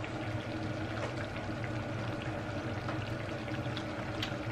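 Coconut-milk seafood stew simmering in a pan on a tabletop burner: a steady bubbling hiss over a low hum, with a few faint clicks.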